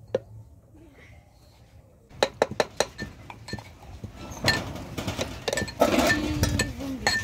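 Metal spoon clinking and scraping against an aluminium cooking pot while stirring. A run of quick clinks starts about two seconds in, after a quiet start.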